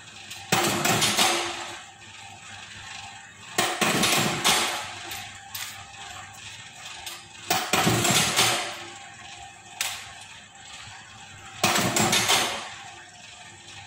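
Motor-driven spiral binding machine running through four cycles, each a roughly one-second burst of mechanical noise that starts suddenly, about every four seconds.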